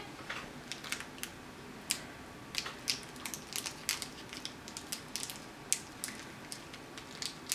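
Hands working the small pieces of a DIY Japanese candy kit: scattered, irregular small clicks and crinkles.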